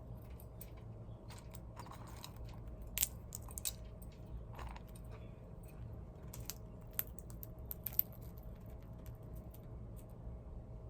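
Crispy treats being crunched and chewed: irregular crisp crackles, loudest about three seconds in and again near eight seconds, over a low steady hum.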